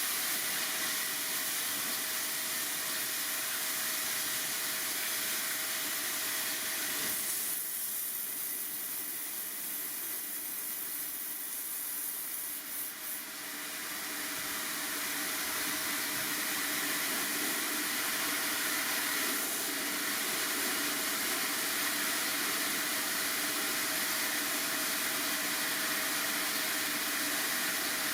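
Steady hissing jet of spray or air from a cleaning tool, easing off for a few seconds about 7 seconds in and coming back to full strength around 14 seconds.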